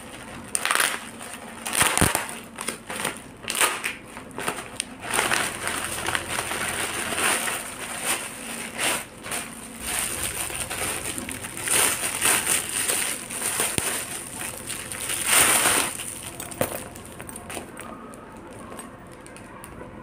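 Plastic packaging, a courier mailer and the clear plastic wrap around a handbag, crinkling and rustling in irregular bursts as it is opened and pulled away by hand. It grows quieter in the last few seconds.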